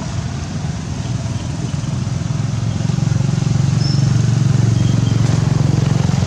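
A motor vehicle engine running steadily out of sight, growing louder from about halfway through.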